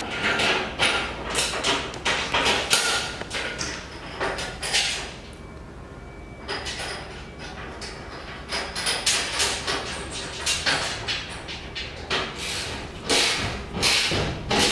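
Sharp metallic clinks and knocks of steel bolts being handled and pushed through a coated mild-steel roof cross member, with a brief lull partway through. Near the end comes a quick run of clicks as the bolts are tightened with a spanner.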